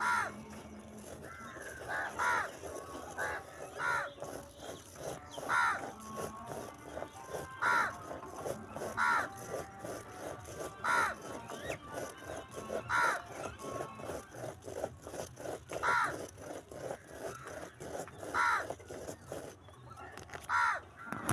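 A bird calling again and again, a short call every two seconds or so, over quick, faint ticking and scratching from a pen driving a plastic Spirograph gear around its ring.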